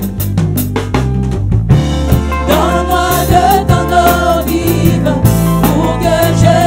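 Live gospel band: hand drums and bass guitar, with sharp drum strokes in the first two seconds. A lead singer and backing choir sing in French from about two seconds in.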